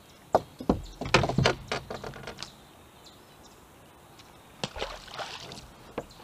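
Sharp clicks and knocks as a bass is handled on a boat deck, then a short splash about four and a half seconds in as the bass is let go over the side into the water.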